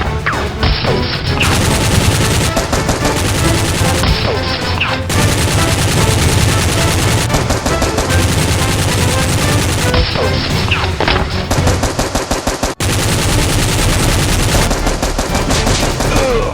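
Rapid, continuous automatic gunfire sound effects, shots in fast succession, with a momentary break near the end.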